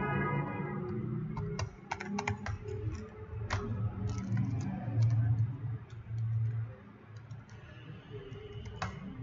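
Computer keyboard typing: irregular key clicks in short quick runs, over a low hum that swells and fades.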